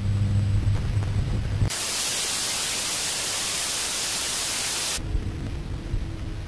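A low droning hum, then about a second and a half in an abrupt cut to loud analog TV static hiss, which lasts about three seconds and cuts back to the low hum. This is the corrupted digital station ident giving way to leftover analog snow.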